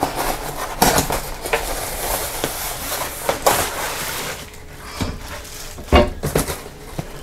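A flat cardboard box being torn open and handled: cardboard scraping and flexing and plastic packing rustling, with a few sharp knocks, the loudest near the end.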